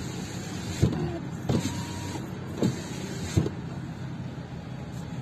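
Seat Leon (2013–2018) power window motor driving the door glass in short runs, each run started and ended with a click, about five clicks in the first three and a half seconds. The repaired window switch is working normally again.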